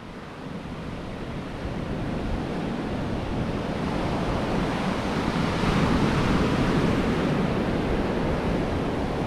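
Sea surf breaking and washing up a sandy beach, with wind on the microphone. It grows louder over the first half and then holds steady.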